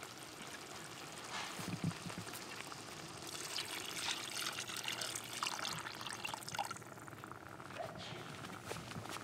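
Water poured from a glass jug into a cast-iron Dutch pot of chicken curry, a splashing trickle for about three seconds in the middle; this is water added to just cover the meat so the curry can simmer low and slow.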